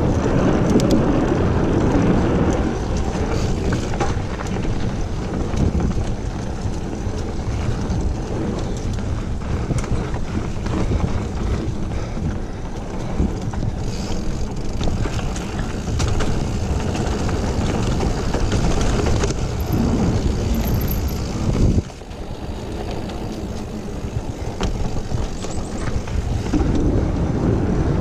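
Wind buffeting the microphone over the rolling tyre and trail noise of a mountain bike riding singletrack, with scattered clicks and rattles from the bike. The sound drops suddenly about three-quarters of the way through, then builds again.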